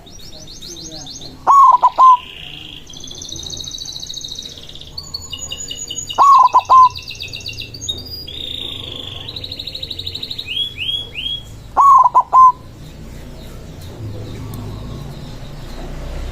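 White zebra dove (perkutut) cooing: three loud short phrases of a few quick notes, about five seconds apart. Small songbirds chirp and trill steadily behind it.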